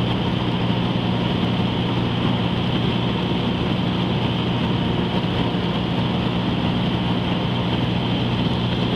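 Light aircraft's engine and propeller droning steadily, heard inside the cabin: a constant low hum under an even rush of air noise.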